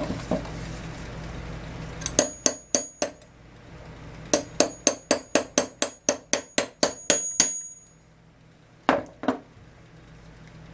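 Hammer striking a steel punch held against the top of a Champion CJ14 spark plug clamped in a vise, to knock the plug apart. There is a quick run of about five blows, then about a dozen at roughly four a second, many with a high metallic ring, and two more blows near the end.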